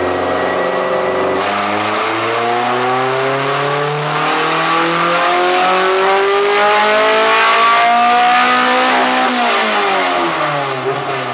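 Honda B20 VTEC four-cylinder on open headers making a full-throttle pull on a chassis dyno: the revs climb steadily for about eight seconds, getting louder about halfway as VTEC engages, then the throttle closes and the revs fall away near the end.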